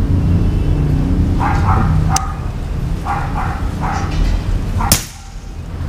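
A dog barks twice, then a single sharp shot from a regulated .22 PCP air rifle fitted with a moderator sounds about five seconds in, over a steady low rumble.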